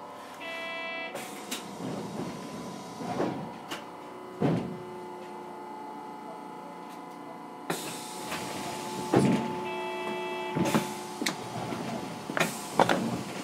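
A steady electrical hum inside a Hiroshima Electric Railway 3900-series tram standing still. A short buzzer-like chime sounds about half a second in and again near ten seconds. Several knocks and thuds come through, and the noise grows louder from about eight seconds.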